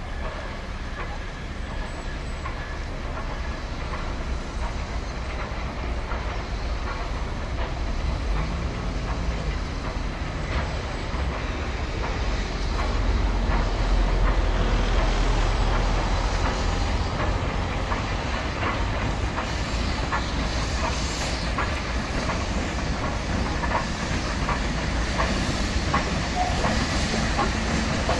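LNER K4 steam locomotive hauling a goods train past: a steady rumble with wheels clicking over rail joints and a hiss of steam, loudest about halfway through.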